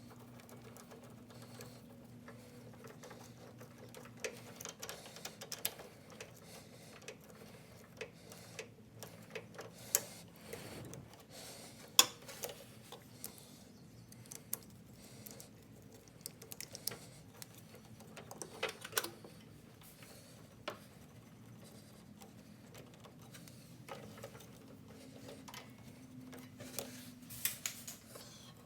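Scattered light clicks and taps of hands and small tools handling a short rubber fuel hose and its fittings while it is pushed onto the metal fuel line and mechanical fuel pump, with a sharper click about twelve seconds in.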